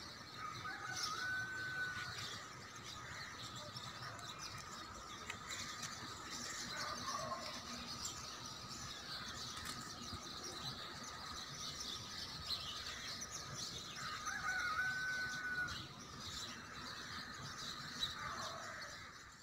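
A chorus of many birds chirping and twittering together, with one clear whistled note standing out twice, about a second in and again some fourteen seconds later.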